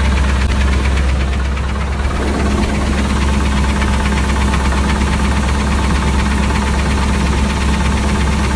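Car engine idling with a fast, even knocking or ticking over the drone. The owner cannot tell whether it is rod knock or lifter tick; the noise started suddenly while driving.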